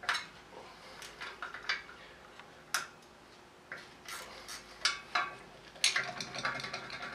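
Scattered metallic clicks and clinks of a hand wrench working the bolts on an engine's fan pulley, at an uneven pace, busier near the end.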